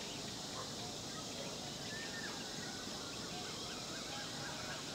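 Tropical dawn ambience: birds giving short scattered calls, with a quick run of repeated notes mid-way, over a steady high insect drone.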